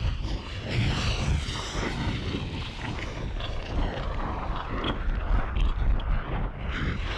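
Volcanic eruption: a deep, continuous rumble that swells and falls, with scattered crackles and pops.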